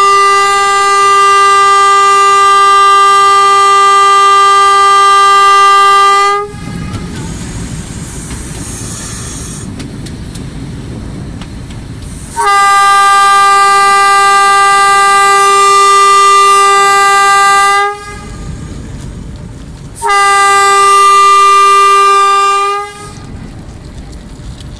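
Locomotive horn sounding three long steady blasts, the last one shorter, with the train's running rumble between them; the horn is warning cattle off the track ahead.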